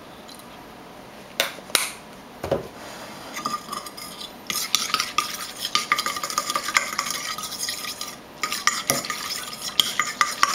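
Metal fork whisking a foamy tempera-paint and dish-soap mixture in a ceramic bowl: rapid clinking and scraping against the bowl. A few separate knocks come first, the whisking starts about three seconds in, and it stops briefly near the end before going on.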